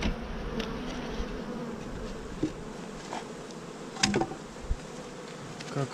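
Honeybees buzzing steadily at an open beehive, with a few wooden knocks and bumps as the hive's top pillow is lifted off, the sharpest about four seconds in.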